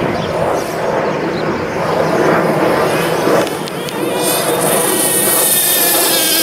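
HPI Trophy 4.6 nitro RC truggy's small two-stroke glow engine running at speed with a high buzz. About two-thirds of the way through it settles into a high, steady whine at high revs.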